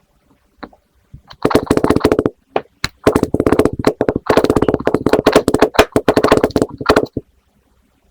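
Kinetic sand being squished and crunched: two runs of rapid crackling crunches, a short one about a second and a half in and a longer one from about three seconds until shortly before the end.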